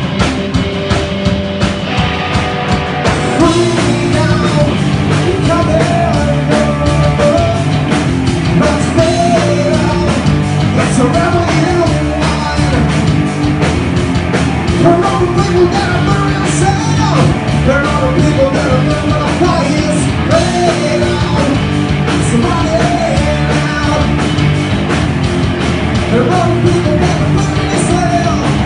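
Live rock band playing a grunge song: electric guitar, bass guitar and drums, with a man singing over them. A lighter intro with a steady beat gives way to the full band about three seconds in.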